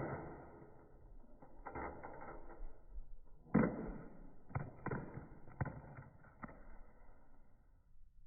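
A plastic flip phone hits the ground after a head-height drop and clatters as it breaks apart, its battery and back coming off. One hard knock fades out near the start, then come further knocks about 1.7 and 3.6 seconds in, and a run of lighter knocks after.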